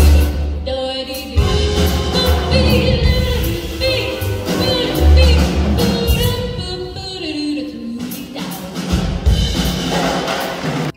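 A female vocalist singing a jazz chart with a big band, with saxophones, brass, piano, upright bass and drum kit playing behind her.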